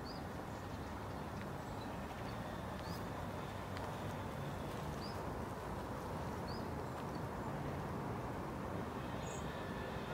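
Outdoor ambience: a steady low rush with a small bird's short high chirp every second or two.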